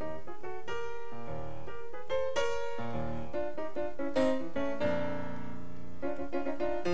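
Background piano music: a melody of changing notes over low bass notes.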